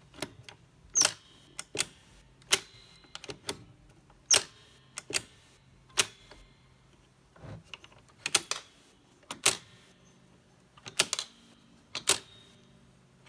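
A string of sharp mechanical clicks and clacks at irregular intervals: the freshly lubricated levers, arms and linkages of a Roberts 1725 reel-to-reel tape recorder's transport being worked by hand and snapping into place. A faint steady low hum runs underneath.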